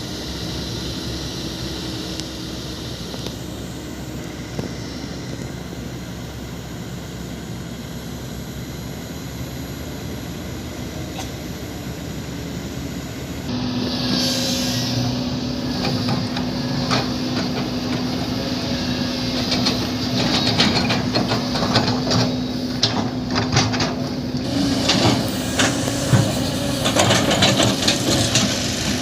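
Heavy diesel construction machinery running with a steady engine drone. About halfway through the sound changes abruptly to a louder engine with a steady hum, and in the last several seconds irregular metallic clanks and knocks join in.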